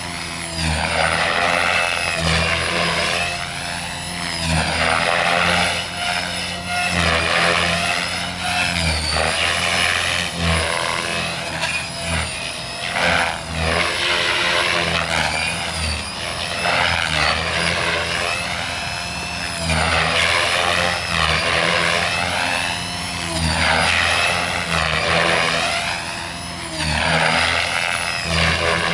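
Gaui X5 electric RC helicopter in flight: the whine of its motor and rotor rises and falls in pitch every two to three seconds, over a low hum.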